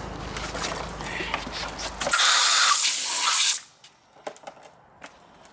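A burst of compressed air from a blow gun: one loud, steady hiss of about a second and a half that starts about two seconds in and cuts off sharply. A low hum is heard before it.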